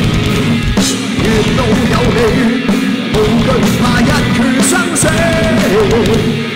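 Punk rock band playing loud: distorted electric guitars, bass guitar and drum kit, with a wavering melody line over the top.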